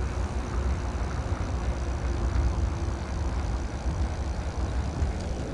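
Electric mountain bike rolling along a paved path, with steady tyre noise and heavy wind rumble on the microphone.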